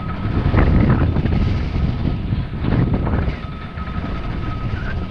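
Wind rumbling on a GoPro action camera's microphone, a steady low buffeting.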